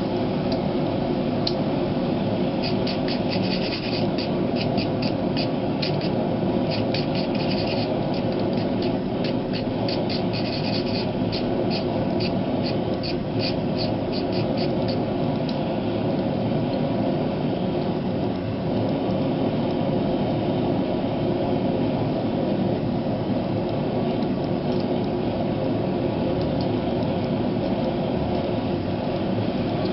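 Hand file rasping across a forged steel bottle opener in quick repeated strokes, a few a second, for roughly the first half. A loud steady rushing noise runs underneath throughout.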